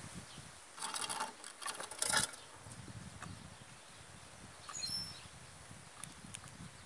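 Chopi blackbird pecking and rummaging in cracked corn in a feeder: two rustling bursts in the first two seconds, then scattered light clicks. A short high bird chirp about five seconds in.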